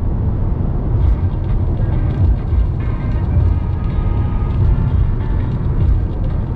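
A steady low rumbling noise that starts abruptly, with faint music underneath.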